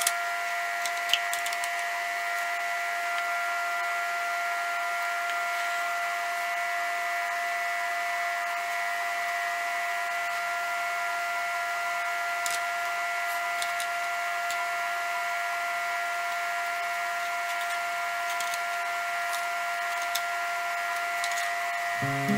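Steady, unchanging whine of an electric motor running, with a few faint clicks and knocks on top.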